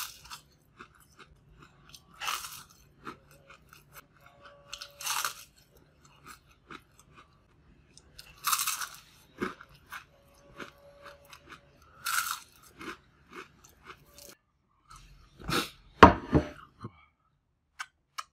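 Crispy deep-fried fish skin crunching between the teeth: a loud crunchy bite about every three seconds, with quieter chewing between. A louder burst of mouth noise comes a couple of seconds before the end.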